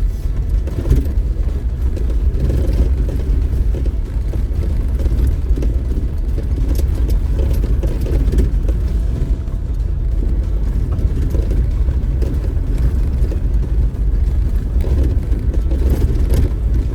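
Off-road vehicle driving slowly over a rough dirt trail: a steady low rumble of engine and tyres, with scattered knocks and rattles from the bumps.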